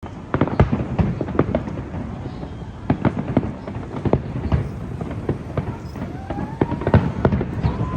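Fireworks going off in many sharp, irregular bangs, several a second at times, over a steady background rumble.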